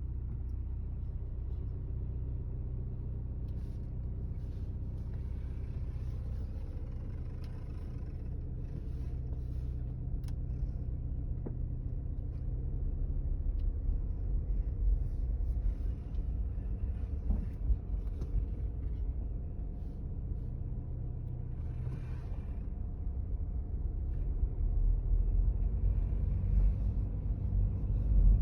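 BMW 218d Active Tourer's diesel engine running with a steady low rumble. Over it come faint, irregular scratchy strokes: the cold-morning noise that sounds like something rubbing, which the owner links to the steering and the strut area.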